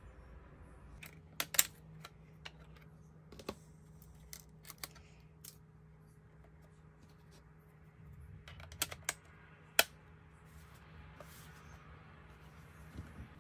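Scattered sharp plastic clicks and taps from a Logitech K380 keyboard being handled, its battery compartment worked and the keyboard turned over. The clicks come a few seconds apart, with two loud ones, one about a second and a half in and one near ten seconds, and a quick cluster just before it.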